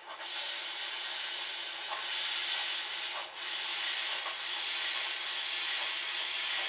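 Steam hiss sound effect from an ESU LokSound 5 decoder, played through a small speaker in a model steam locomotive's tender, with a brief break about halfway through.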